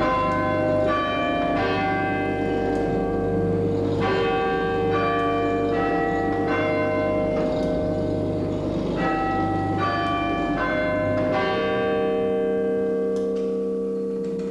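The town hall clock's chime bells, cast in copper-tin bell bronze, ring a sequence of struck notes in phrases of about four, a little under a second apart. The last note, about eleven seconds in, is left to ring and fade. Beneath it runs a low hum that stops at about the same point.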